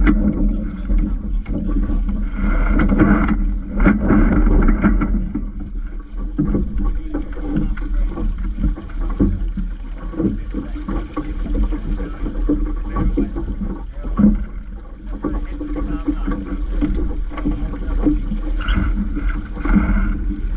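Wind buffeting the microphone and water rushing along the hull of a Vaucluse Junior sailing dinghy under way, in uneven gusts, louder about two to five seconds in and again near the end.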